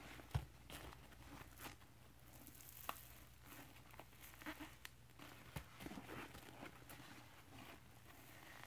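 Rubber-gloved hands squeezing and rubbing Scrub Daddy sponges in a bucket of powder-and-liquid cleanser paste: faint squishing and crackling with scattered sharp clicks, the sharpest about half a second in.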